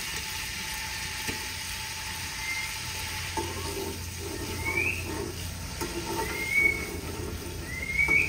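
Finely chopped onion sizzling as it fries in hot ghee in a steel pot, stirred with a steel ladle that knocks and scrapes against the pot a few times. Short rising squeaks come in several times from about two seconds in.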